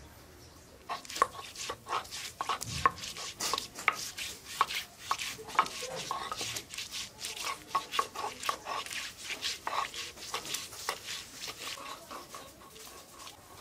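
Metal utensil clinking and scraping against a cooking pot: irregular knocks, two or three a second, each with a short ringing note, starting about a second in.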